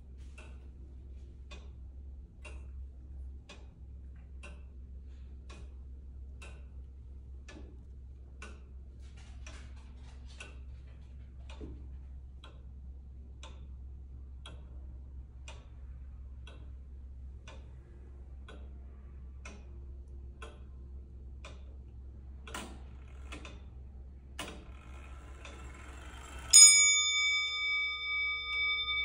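Danish J.P. Arboe grandfather clock ticking steadily, with two louder clicks from the movement near the end. Then the hammer strikes its dome bell once, a loud clear ring that sustains with several pure tones.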